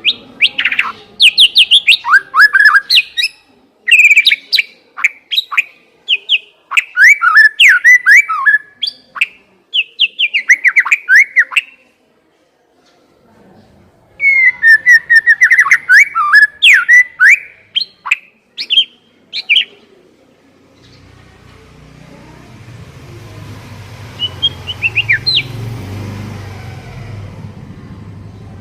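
White-rumped shama (murai batu) singing loud, varied whistled phrases, with a short break about halfway. About two-thirds of the way in the song stops and a low, slowly rising rumble takes over, with one short bird call over it.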